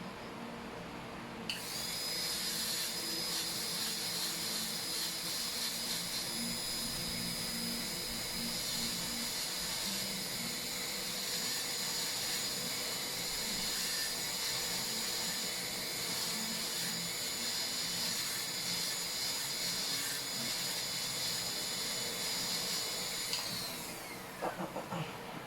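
High-speed dental handpiece (air-turbine drill) running with a steady high whine while cutting a Class II cavity preparation in a lower molar. It starts about a second and a half in and winds down with falling pitch near the end, followed by a few light clicks.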